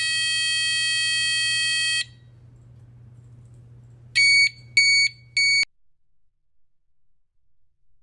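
Buzzer on a DM-45F2022 sound effect module playing built-in alarm sounds: a steady high beep that stops about two seconds in, then three short beeps about half a second apart.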